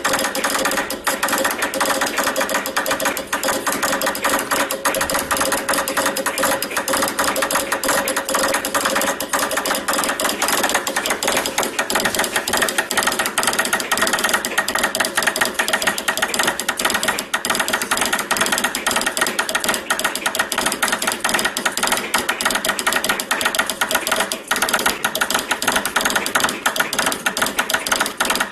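Telegraph straight key tapped rapidly to send Morse code at high speed: a dense, continuous run of sharp mechanical clicks.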